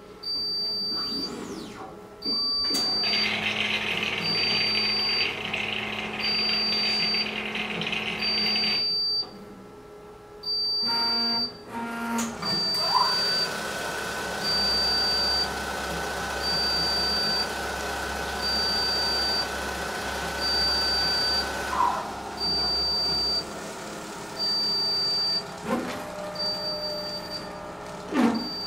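Automated ELISA processor's stepper motors driving the pipetting arm and plate gripper: a whine that rises in pitch as a move starts, holds through a long travel, and falls as it stops, with shorter moves before and after. A short high electronic beep repeats about once a second throughout.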